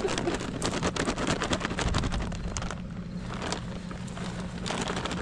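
An engine running steadily, with many sharp ticks of rain falling over it.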